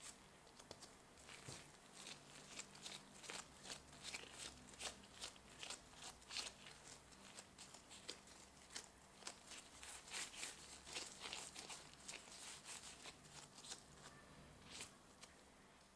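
Faint, irregular crackling and rustling of nitrile-gloved hands rolling and tucking soft bread dough into balls on a wooden board.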